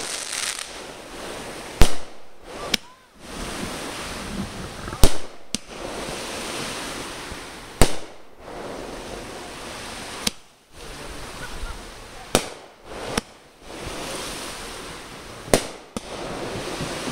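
Aerial fireworks bursting overhead: about eight sharp bangs, two to three seconds apart, with a steady hiss between them.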